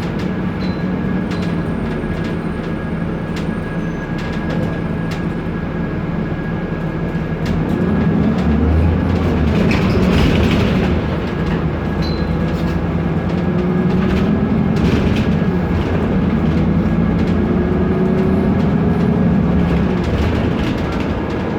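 BMC Procity city bus on the move, its Cummins ISB turbo diesel and ZF automatic gearbox running with a steady hum whose pitch rises and falls as the bus speeds up and slows. Loose interior parts and window glass rattle and click throughout.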